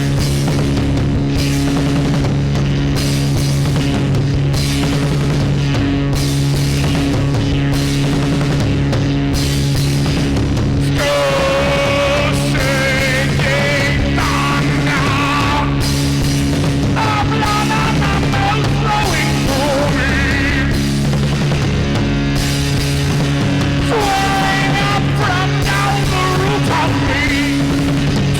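A live trance-punk band playing a driving rock song with drums over a steady low drone. About eleven seconds in, a wavering lead line enters and comes and goes.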